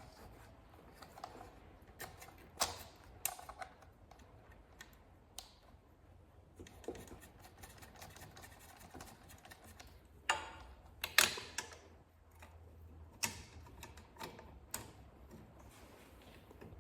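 Irregular clicks and light knocks of small parts and hand tools being handled while a motorcycle auxiliary light is fitted back into its holder, with a cluster of louder clicks about ten to eleven seconds in.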